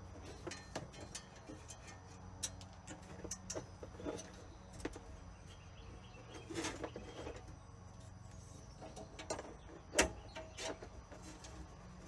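Soft clicks and rustles of wiring and plastic parts being handled as a wiring harness is laid into a vehicle floor, with one sharper click about ten seconds in. Faint bird chirps behind.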